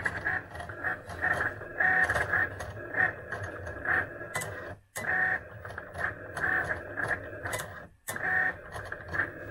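Cricut cutting machine drawing lettering with a pen: its carriage and roller motors whine in short runs that change pitch from stroke to stroke. The sound breaks off abruptly twice, about five and eight seconds in.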